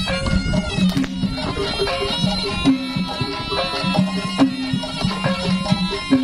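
Live Jaranan Jowo ensemble music: a shrill slompret (Javanese shawm) plays a sustained melody over Javanese drums and gong-like bronze percussion in a steady rhythm.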